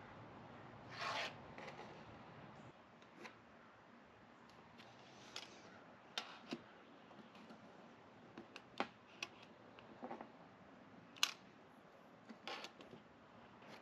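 Faint handling of small parts: scattered light clicks and short rustles, with a longer rustle about a second in and a sharper click a little past the middle.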